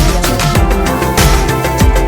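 Background music with a steady electronic beat: regular drum hits under sustained synth tones.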